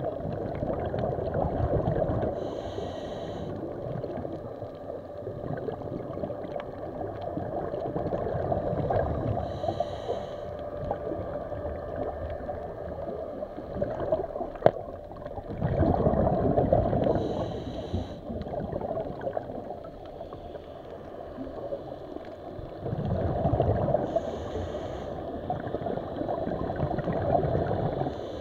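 Scuba diver breathing through a regulator underwater: a short hiss on each inhale, then a long gurgling rush of exhaled bubbles, repeating every several seconds.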